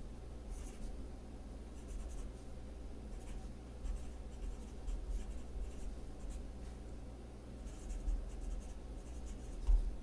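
Pencil writing on lined spiral-notebook paper: faint scratchy strokes in short clusters, over a low steady hum.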